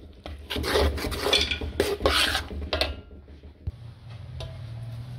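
Metal spatula scraping and stirring a coarse, crumbly flaxseed and jaggery mixture around a metal karahi, in about five strokes. It goes quieter after about three seconds, with a click and then a low steady hum.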